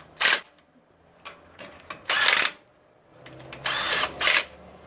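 Power drill run in several short bursts of whirring, with quiet pauses between them.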